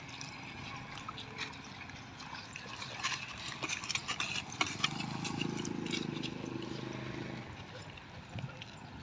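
Cattle moving and grazing: scattered short knocks and clicks of hooves and feeding, with a steady low sound for a couple of seconds around the middle.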